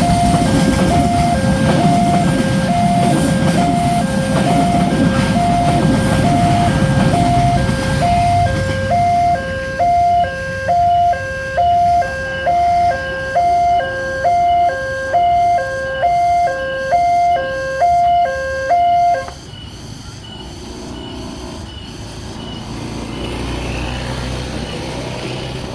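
Railway level-crossing warning alarm ringing a fast two-tone pattern that flips back and forth between two pitches, over the rumble of a passing train for the first eight seconds or so. Once the rumble fades the alarm rings on alone and cuts off suddenly about 19 seconds in.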